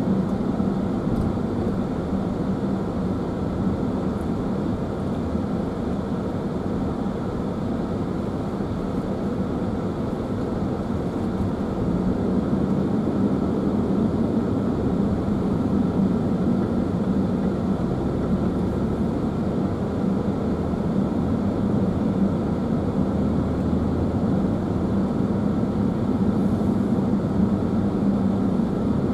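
Steady road noise of a car driving through city traffic: a low tyre and engine rumble with a constant hum, getting a little louder about twelve seconds in.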